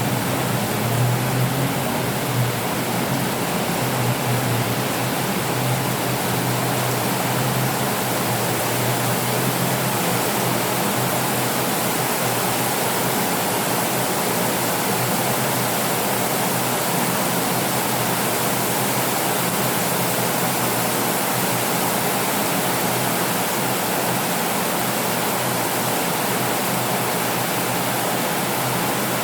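Heavy rain falling steadily, a dense even hiss. A low rumble in the first few seconds fades away.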